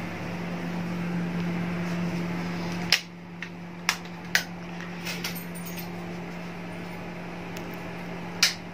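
Wall light switches clicking four times over a steady low electrical hum. The hum drops in level at the first click. The last click, near the end, switches on the ceiling spotlights.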